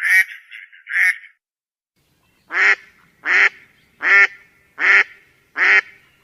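A bird calling: a run of short calls that stops about a second in, then, after a brief gap, loud honking calls repeated evenly, about one every 0.8 seconds.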